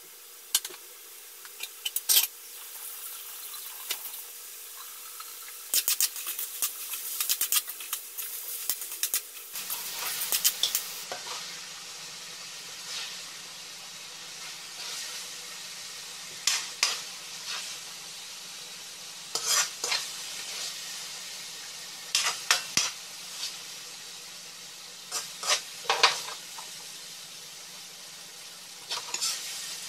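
Metal spatula scraping and clinking against a metal wok as sautéed onions, carrots and bell peppers are stirred and scooped out onto a plate, in clusters of sharp clicks. Under it a steady sizzle that gets louder about a third of the way in.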